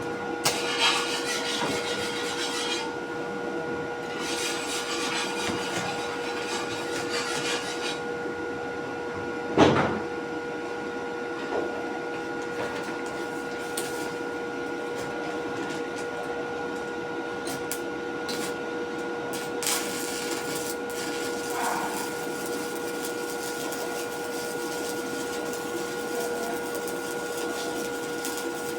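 Steady mechanical hum holding several fixed tones, with stretches of hiss and one sharp knock about ten seconds in.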